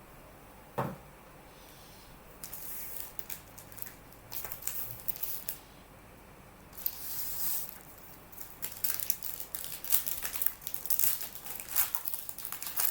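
Trading card pack being opened and handled: the wrapper crinkles and rustles in irregular short bursts that come thicker toward the end, with one light knock about a second in.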